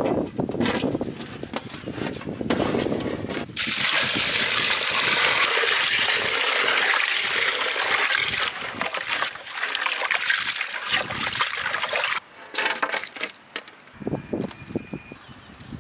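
Raw prawns being washed by hand in a large aluminium pot: water pours in and splashes steadily from about four seconds in, then stops about twelve seconds in, leaving only small splashes and handling sounds.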